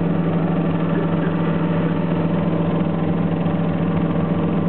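A machine running with a steady, unchanging hum at one pitch.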